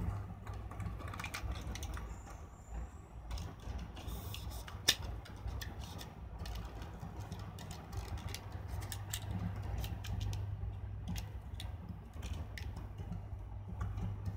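Handling clicks and rustles as a 35 mm film cassette is fitted into the open back of a Canon EOS-1 film camera and its leader is drawn across the film gate, with one sharper click about five seconds in. A low steady hum runs underneath.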